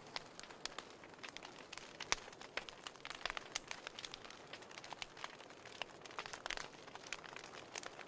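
Wood fire crackling in an open fireplace: an irregular scatter of sharp snaps and pops over a faint hiss, with a louder pop about two seconds in.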